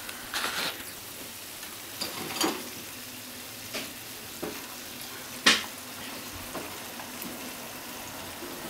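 Starch-coated tofu cubes sizzling steadily in a nonstick frying pan, with several sharp clicks as chopsticks turn the cubes against the pan; the loudest click comes about five and a half seconds in.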